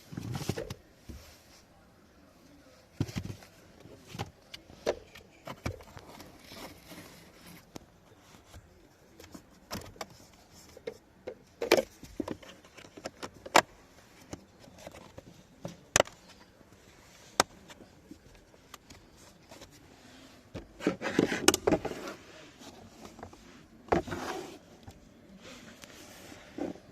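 Hands handling plastic parts while fitting a car's cabin pollen filter: scattered sharp plastic clicks and knocks with light rustling. There is a longer scraping rustle about two-thirds of the way through and another shortly after.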